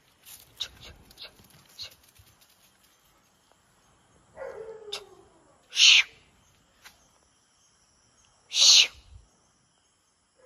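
Street dogs moving on paving, with faint scuffs and clicks. About four and a half seconds in comes a short whine that falls in pitch. Two sharp, loud, hissy bursts follow, about three seconds apart.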